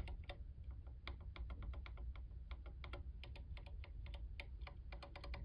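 Linear mechanical keyboard switches being typed on, a fast, uneven run of soft clacks, several keystrokes a second.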